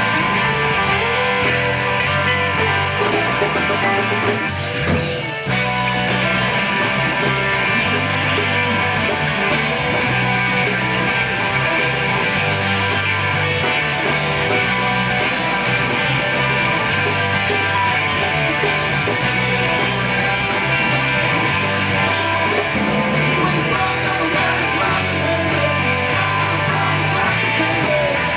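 Live rock band playing with electric guitars and drums, loud and dense, with a brief dip in the sound about five seconds in.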